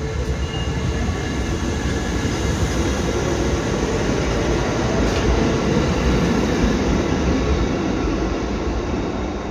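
Kotoden 1200 series electric train pulling out along a station platform, the running noise of its wheels on the rails and its motors growing louder as it passes, then easing off near the end as the last car draws away.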